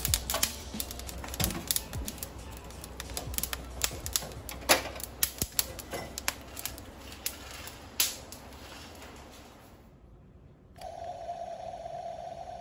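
Irregular clicks and rattles of metal parts and coffee beans in a small square wire-mesh drum roaster as it is unclipped and handled, over a low hum. After a brief lull near the end, a steady hum takes over.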